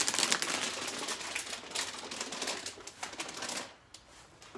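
Plastic packaging crinkling and rustling as it is handled: a rapid run of small crackles that dies away near the end.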